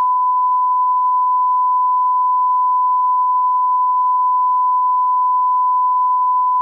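A steady, pure 1 kHz test tone held at one pitch and level: the line-up reference tone that heads a video recording.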